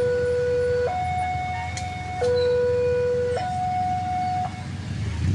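Electronic two-tone railway level-crossing warning alarm sounding, alternating between a lower and a higher tone about every 1.2 seconds and stopping about four and a half seconds in. A steady low rumble runs beneath it.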